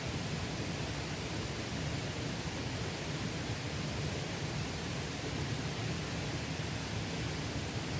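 Mountain stream water rushing over rocks in a steady, even wash.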